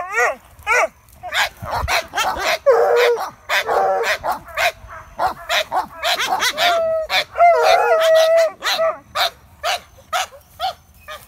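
Dogs barking and yipping in a rapid run of short calls, with drawn-out whining howls about three seconds in and again around eight seconds.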